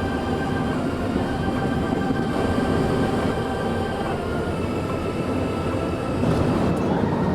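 Airliner cabin noise aboard an Airbus A350-900: a steady rush and rumble with several high whining tones. The tones shift slightly in pitch about halfway through, and the noise grows a little louder near the end.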